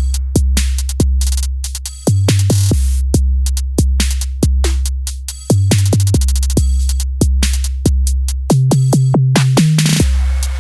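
Electronic background music: drum-machine beat with a heavy, deep bass line and a short rising synth phrase.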